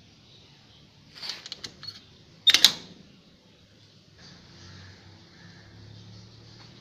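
A metal door's rim lock and bolt worked by hand: a quick run of metallic clicks about a second in, then one loud clank with a short ring as the door is unlatched and pulled open. After it, a faint steady low hum comes in.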